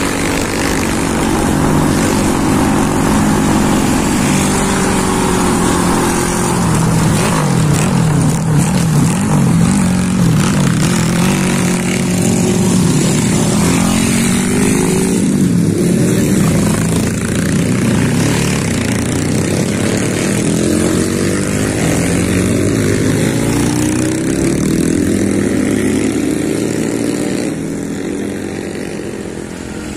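Motorcycle engine running under way, its pitch rising and falling continually with throttle and speed.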